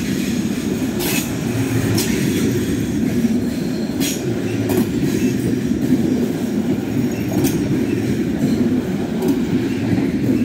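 Passenger coaches of a special train rolling past at low speed: a steady rumble of wheels on rail, broken by several sharp clicks from the wheels.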